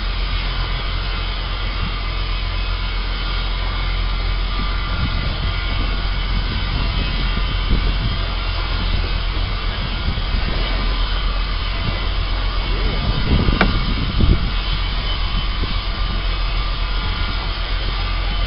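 A steady engine drone with wind rumbling on the microphone, heard aboard a small boat at sea; a short knock about two-thirds of the way through.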